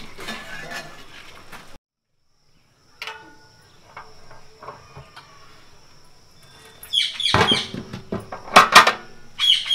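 Birds chirping loudly close by over a faint steady high insect buzz, loudest in the last few seconds. Knocks and scrapes come from a large aluminium cooking pot being lifted off the stove.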